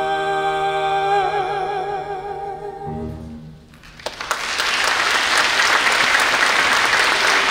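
The final note of a stage duet song, held with vibrato over a low orchestral accompaniment, fades out about three and a half seconds in. Just after, a theatre audience breaks into applause, which starts suddenly and keeps going.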